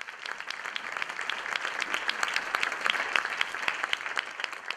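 Audience applauding, many hands clapping together; it builds over the first couple of seconds and starts to thin out near the end.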